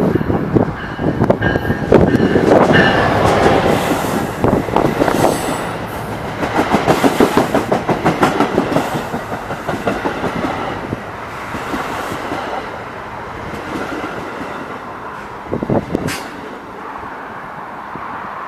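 A train passing close by, its wheels clacking rhythmically over the rail joints. The clatter is loudest in the first half, then fades as the train moves away, with a brief louder bang near the end.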